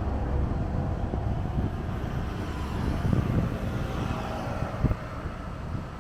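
Wind buffeting the microphone as a low, fluctuating rumble, with a single short knock about five seconds in.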